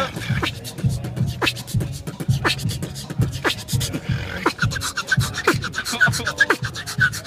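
Live beatboxing: a steady beat of vocal kick drums and snares, a snare about once a second with hi-hat clicks between. About halfway through, a buzzing higher vocal line joins the beat.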